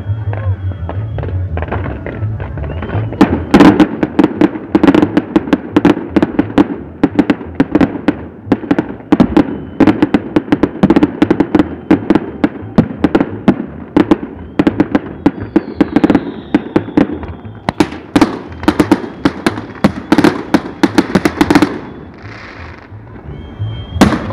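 Fireworks display: a dense, rapid run of bangs and crackles begins a few seconds in and keeps going for most of the stretch. It eases off near the end, and one last loud bang follows.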